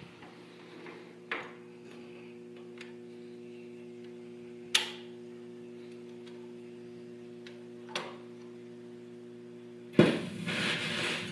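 1958 Silvertone Medalist console stereo's record changer cycling: a few sharp mechanical clicks over a steady hum from the amplifier. About ten seconds in, the needle sets down and the record's surface noise comes up suddenly, just before the music starts.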